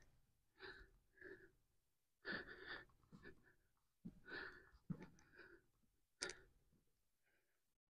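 Faint, short breaths of a man straining through one-legged calf raises, a puff every second or two against near silence.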